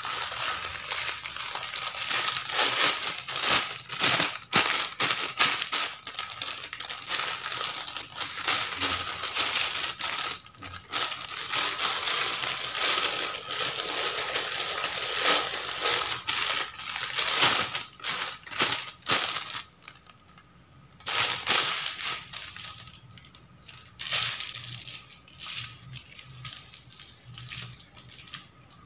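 Thin clear plastic bag crinkling and crackling almost without a break as it is wrapped around a ball of fish bait for a second layer and twisted shut. The sound drops out briefly about two-thirds of the way through and is quieter near the end.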